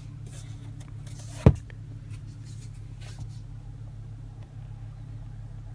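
Steady low hum inside a car's cabin, with a single sharp click about a second and a half in.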